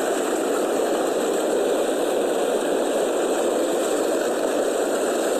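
Steady rushing of a steaming volcanic mudflow surging over and around boulders during an eruption of Mount Semeru.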